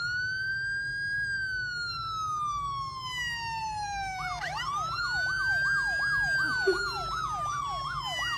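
Emergency-vehicle siren: one long wail that rises quickly and slowly falls, then a second wail with a fast up-and-down yelp sweeping about two or three times a second over it.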